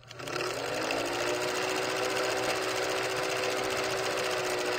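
Film projector running: a steady, rapid mechanical clatter with a hum that comes up to speed in the first half second, and a sharp click near the end.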